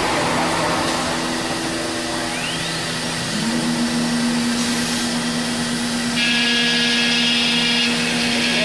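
Biesse Rover 35 CNC router machining a wooden door-frame strip: spindle and dust extraction running with a steady hum, a rising whine about two and a half seconds in, and a higher whine joining about six seconds in.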